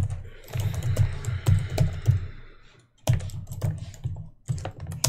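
Typing on a computer keyboard: a run of quick key clicks, with a brief pause about three seconds in before the clicking resumes.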